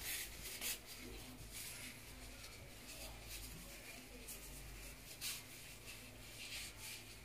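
Faint, soft rustling of plastic-gloved hands wrapping pork filling in pastry dough, a light scrape or crinkle every second or so over a low steady hum.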